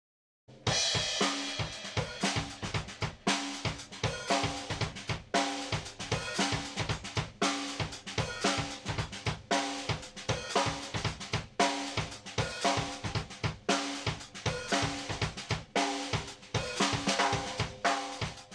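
Drum kit playing a steady beat of bass drum, snare, hi-hat and cymbals, starting about half a second in and dying away near the end.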